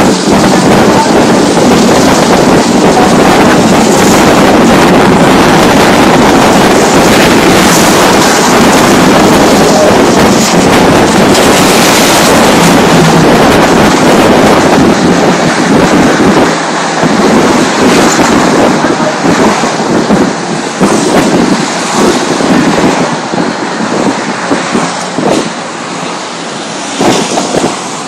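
Wind buffeting the microphone of a moving vehicle, loud and rushing, with road and engine noise under it; it eases and turns gustier about halfway through.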